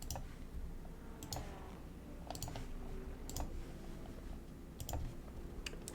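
Computer mouse clicking a handful of separate times at irregular intervals, some clicks close together in pairs, as edges are selected in CAD software. The clicks are faint, over a low room hum.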